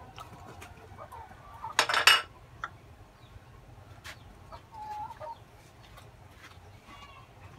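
Chickens clucking, with a loud, short, harsh call about two seconds in and a shorter pitched cluck around five seconds.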